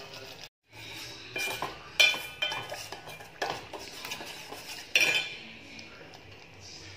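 A steel spoon stirring thick sauce in a stainless steel pot, clinking and ringing against the pot's sides about half a dozen times. The loudest strikes come about two and five seconds in.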